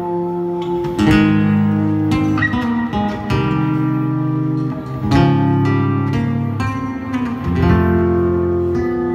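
A live instrumental band's electric guitars playing sustained chords, with a new chord struck every one to two seconds.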